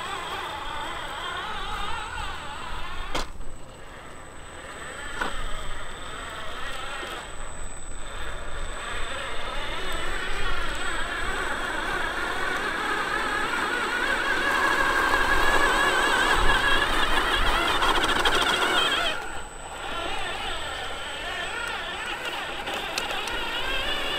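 Whine of a 1/10-scale RC4WD Desert Runner crawler truck's electric motor and gears, its pitch wavering up and down with the throttle. It eases off briefly twice, a few seconds in and near the end, and is loudest just before the second easing.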